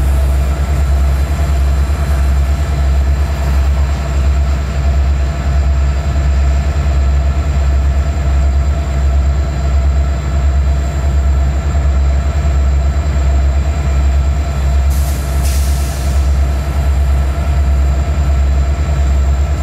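Diesel freight locomotives running as they creep forward with a train: a steady low engine drone with a few steady whining tones above it. A short hiss comes about fifteen seconds in.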